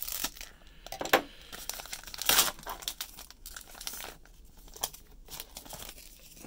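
Plastic wrapper of a trading-card hanger pack crinkling as it is pulled open and the cards are slid out. There are sharp crackles, loudest about a second in and around two and a half seconds in, then softer rustling.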